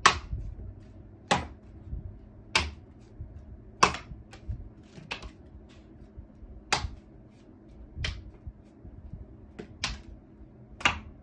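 Playing cards thrown one after another: about nine sharp snaps, a little over a second apart, with a few fainter ticks between them.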